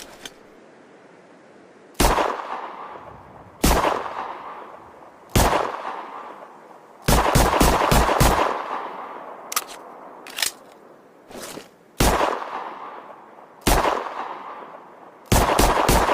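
Ruger Security-9 9mm pistol firing. There are three single shots about 1.7 s apart, then a quick string of about six shots, a few fainter sharp clicks, two more single shots, and another fast string starting near the end. Each shot is followed by a ringing decay.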